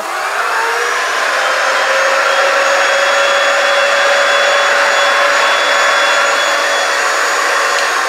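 Backpack vacuum switched on, spinning up over the first second, then running steadily with a high motor whine over a rush of suction air as it draws through upholstery. Near the end it is switched off and winds down.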